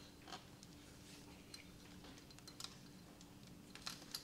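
Near silence with a few faint, light clicks and ticks from a thin hour-meter sensor wire being wrapped by hand around a dirt bike's spark plug lead, over a faint steady hum.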